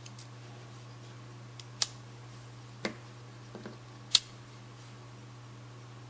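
Metal clicks of a stainless steel pocket multi-tool's folding blade and tools being snapped shut and pulled open. There are two sharp loud clicks about two seconds and four seconds in, a duller knock near three seconds, and a few faint ticks, over a steady low hum.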